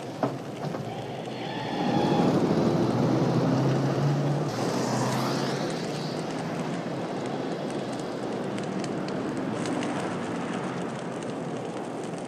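An ambulance van's engine runs hard as it accelerates away, with rushing road and tyre noise. The engine swells about two seconds in and then holds steady. There is a single sharp click just before.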